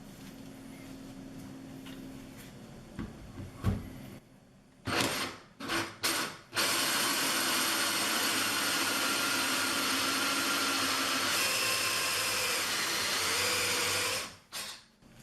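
Cordless drill spinning a 1-1/4 inch hole saw into a cultured marble countertop. A knock comes first, then three short trigger bursts, then about eight seconds of steady cutting whose pitch shifts partway through. The drill stops near the end with one last short burst.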